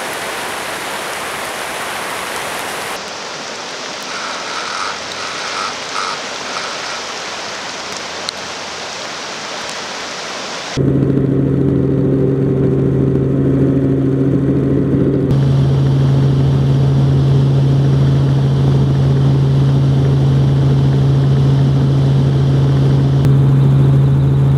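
Fast floodwater rushing, a steady noise. About eleven seconds in, it cuts to the louder, steady drone of an aircraft's engine, which holds a constant pitch.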